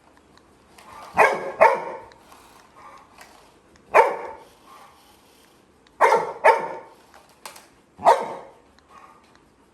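Labrador retriever puppy barking: about six sharp barks spread over several seconds, two of them in quick pairs.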